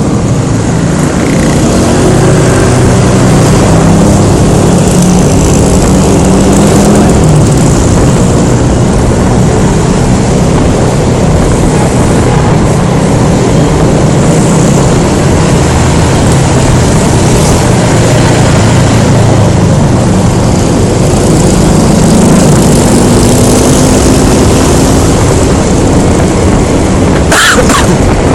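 Wind rushing over a helmet-mounted phone's microphone while riding a Honda Scoopy scooter, its single-cylinder engine humming underneath and its pitch shifting with speed, rising about two-thirds of the way through. A brief sharp sound comes about a second before the end.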